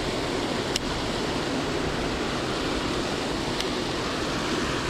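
Water pouring over a low concrete weir, a steady rushing noise. Two faint short ticks sound, about a second in and again near the end.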